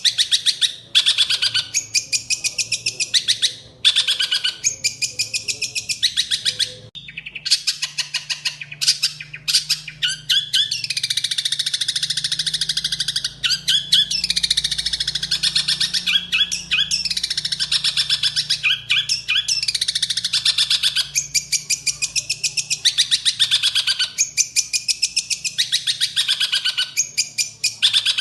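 A songbird singing loud, fast trills and chattering phrases of rapidly repeated high notes. The phrases last a second or two with short breaks, and there is a longer unbroken run of song in the middle.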